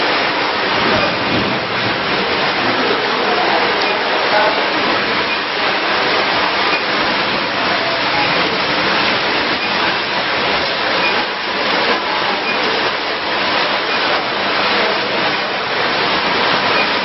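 Loud, steady rushing noise of running machinery, with no rhythm or breaks and a faint low hum beneath it.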